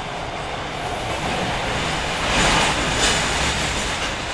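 Osaka Municipal Subway 66 series electric train running, with steady wheel-on-rail noise and a louder hissing rush for about a second past the middle.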